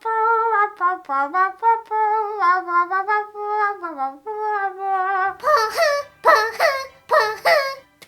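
A woman's voice doing a vocal sound-effect imitation: a run of held, wavering notes like a sung or hummed tune. About five seconds in it breaks into four loud, shrill cries, each falling in pitch.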